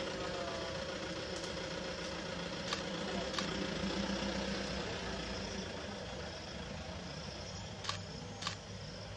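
Safari vehicle's engine idling steadily, with four short sharp clicks or snaps, two a few seconds in and two near the end.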